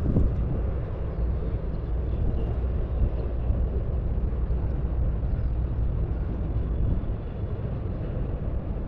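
Wind rumbling on the microphone, easing a little about seven seconds in, with a brief knock just after the start.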